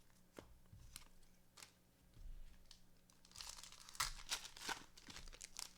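A trading-card pack's wrapper being crinkled and torn open, with light clicks as the cards are handled. The rustling is faint and scattered at first and grows denser in the second half.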